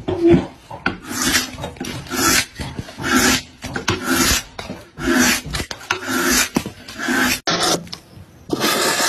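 Hand-pushed carving blades shaving wood in repeated strokes, about one a second, each a rasping scrape as a shaving peels off.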